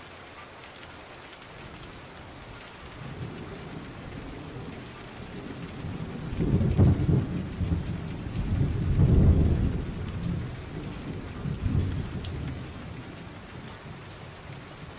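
Steady rain with a long roll of thunder that builds, peaks twice in the middle and fades away.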